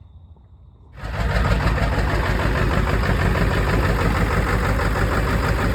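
Ford F550 truck engine starting up about a second in and then running steadily at idle, its first run after a new transmission was put in.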